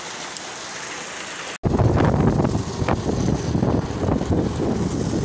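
Steady rain hiss, then after an abrupt cut about a second and a half in, a motor scooter riding along a wet road, with wind buffeting the microphone.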